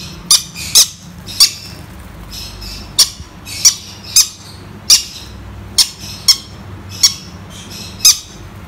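Pineapple conure chick, a colour form of the green-cheeked conure, making about a dozen short, shrill begging squawks at irregular intervals while being hand-fed. The calls are a sign of hunger: the chick is greedy and its feed is late.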